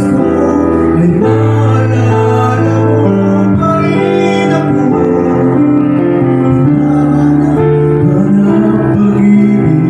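A man singing a slow song into a handheld microphone over instrumental accompaniment, holding long notes through the amplified sound.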